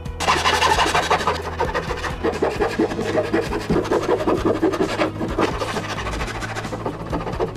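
Wood being scraped and rubbed by hand in quick, uneven strokes.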